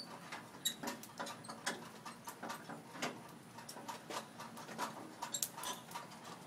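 Small fire of dry leaves crackling in a barbecue grill: irregular sharp snaps and pops, several a second.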